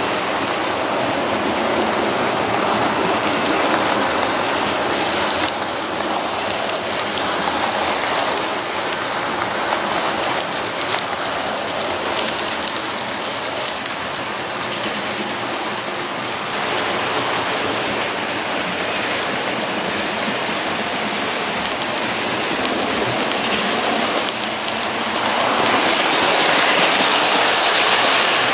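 Model trains running on the layout's track: a steady rumble of wheels and motors with clicking over the rail joints and a few faint high squeaks. It grows louder near the end as a train passes close by.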